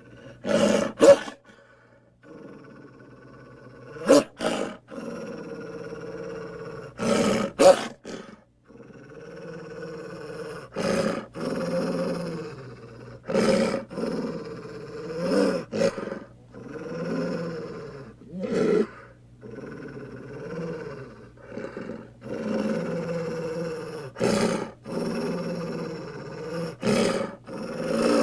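Creature sound effects: a series of animal-like growls and roars, each lasting a second or two with short gaps between, several opening with a sharp, loud bark or snap.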